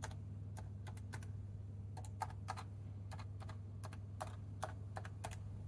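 Keys of a Dell Latitude CPi laptop's replacement keyboard pressed one at a time as each key is tested: irregular sharp clicks, a few a second, over a steady low hum.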